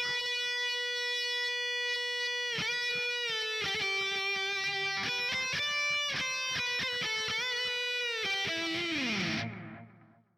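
Jackson JS22 Dinky electric guitar playing a short lead through a high-gain distorted tone with a little reverb and delay. It opens on a long held note, moves into a quicker run of notes with bends, and ends on a falling slide that fades out near the end.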